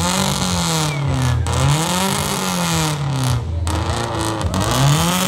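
Rally car engine revved repeatedly, its pitch swelling up and falling back in slow waves about every one and a half to two seconds.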